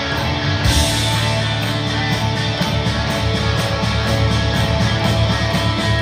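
Live rock band playing: electric guitar at first, then about a second in the full band comes in louder, with drums and bass guitar.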